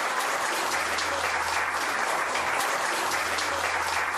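A small group of people applauding, steady clapping throughout.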